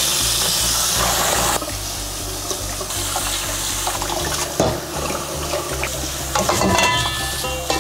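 Tap water running and splashing onto blanched pork ribs in a stainless steel colander and bowl as they are rinsed by hand; the splashing is loudest for the first second and a half. Soft background music plays underneath.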